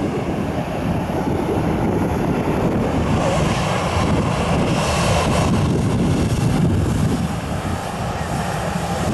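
Jet engines of a WestJet Boeing 737 running as the airliner taxis along the runway, a steady loud noise, with wind buffeting the microphone.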